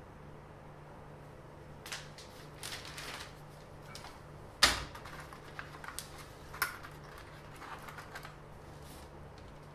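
Small objects being handled by hand: scattered clicks and brief rustles, with one sharp knock about halfway through and a smaller one a couple of seconds later, over a steady low electrical hum.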